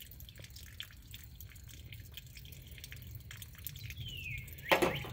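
Faint water dripping and trickling from a slit in an above-ground pool's vinyl liner, with a falling bird whistle and then a brief louder sound near the end.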